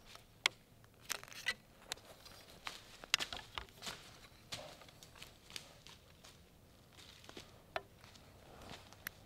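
Scattered soft rustles and sharp crackles, as of movement through dry leaf litter and brush, about a dozen in all, bunched together about a second in and again around three seconds in.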